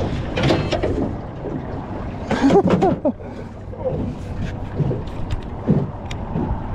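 Wind buffeting the microphone aboard a small fishing boat on choppy water, a steady low rumble with scattered knocks and splashes.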